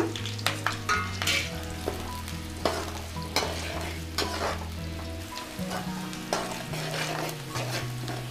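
Sliced onions and green chillies sizzling in hot oil in a metal kadai, stirred with a spatula that scrapes and taps against the pan again and again at irregular intervals.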